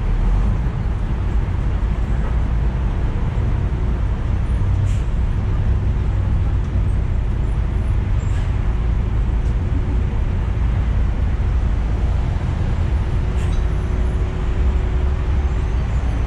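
Riding inside a public route bus: a steady low rumble of engine and road noise, with a faint steady whine and a few light clicks.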